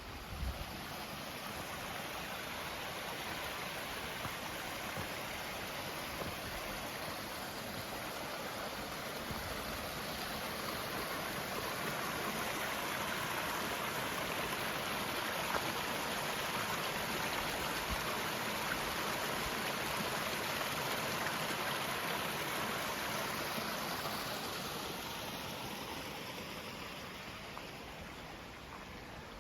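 Rushing water, a steady rush that grows gradually louder after about ten seconds and fades away over the last several seconds.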